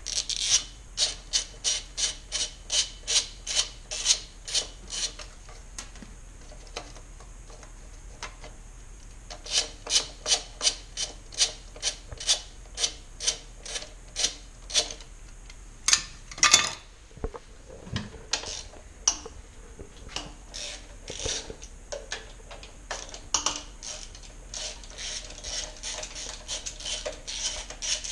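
Socket ratchet clicking in runs as 10 mm bolts are backed out, about three clicks a second, with pauses between runs and a brief louder knock about halfway through.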